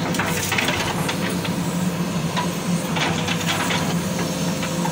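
JCB 3DX backhoe loader's diesel engine running steadily as the backhoe arm works, with bursts of hissing and clattering during the first second and again about three seconds in.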